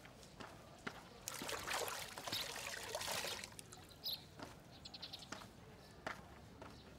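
Wet cloth being wrung out by hand, water splashing and trickling for about two seconds. Afterwards come a few short, high bird chirps.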